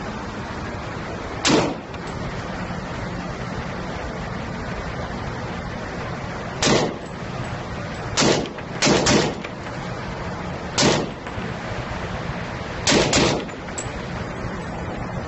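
Semi-automatic rifle fired in single shots at irregular intervals in an indoor shooting range, about eight shots in all, some in quick pairs, over a steady background hiss.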